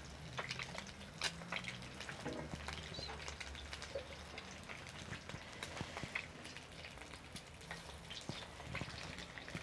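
An egg and tortilla frying in plenty of hot oil in an enamel pan: a soft sizzle with scattered crackles and pops throughout as hot oil is spooned over the egg.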